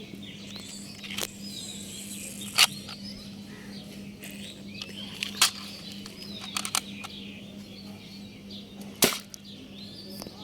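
A toy gun firing with sharp snaps, four or five shots spaced a few seconds apart. The loudest shots come a few seconds in and near the end, over a steady low hum.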